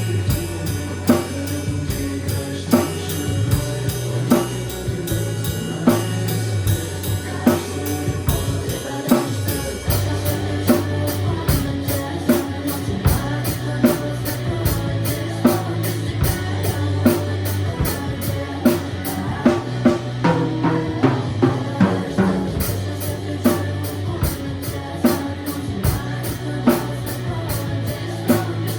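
Drum kit played along with a rock song that has singing and guitar, keeping a steady beat of kick, snare and cymbal hits. About a third of the way in, the cymbal strokes become a dense, even stream.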